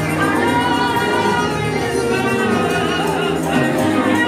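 Live gospel worship music: a woman singing into a handheld microphone over band accompaniment, amplified through the hall's PA speakers.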